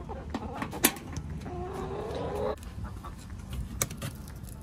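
A backyard hen calling once, a drawn-out call of about a second, with a few sharp clicks and knocks around it.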